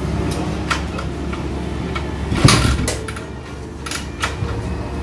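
Vespa chopper scooter engine running steadily, its exhaust being tried for sound. Several metallic knocks and clinks sound over it, the loudest about halfway through.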